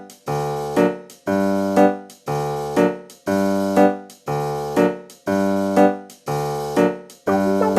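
Background music on a keyboard: a chord struck about once a second, each one fading away, with a quicker run of single notes coming in near the end.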